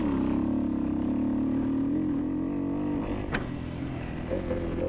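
Dirt bike engine running under steady throttle on a trail ride, its note holding steady and then easing off about three seconds in. A single sharp knock comes just after it eases.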